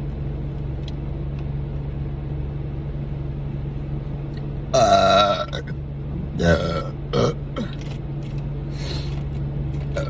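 Person burping loudly after gulping carbonated diet ginger ale. One long burp comes about halfway through, its pitch falling, followed by two shorter burps a couple of seconds later and a faint one near the end.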